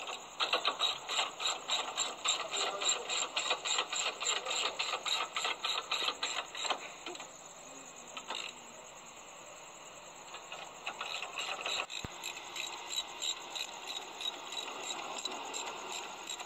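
Rapid, even clicking, about four clicks a second, that stops about seven seconds in and resumes more faintly a few seconds later. A steady high-pitched hiss runs underneath.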